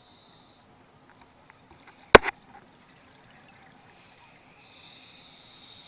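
Scuba regulator breathing heard underwater: a steady hiss that stops about half a second in and returns near the end, with faint bubbling between. About two seconds in there is a single sharp click, the loudest sound.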